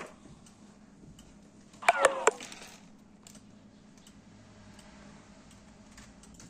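A brief cluster of sharp clicks with a short falling squeak about two seconds in, over a faint steady hum and a few scattered light ticks.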